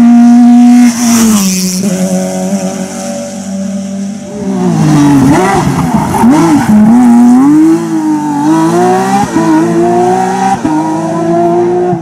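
Porsche 911 GT3 rally car's flat-six engine at high revs. It brakes and changes down into a hairpin, then accelerates hard out of it, the revs climbing and dropping back three times as it shifts up.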